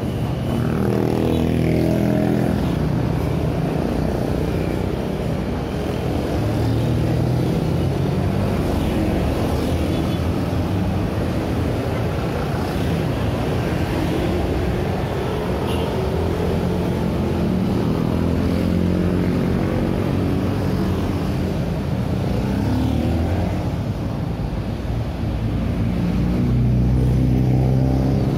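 Busy city street traffic: a steady stream of motor scooters and cars passing close by, their engine notes rising and falling one after another, with the loudest pass near the end.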